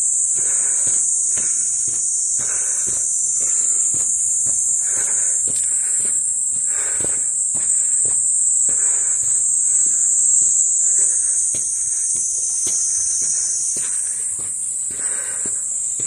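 A steady high-pitched insect drone, with a person's footsteps walking along a path underneath it.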